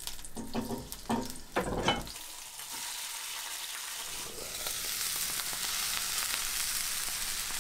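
Spiny lobster halves and garlic frying in oil in a cast iron skillet, a steady sizzle that grows louder and brighter from about halfway through. A few short knocks of handling in the first two seconds.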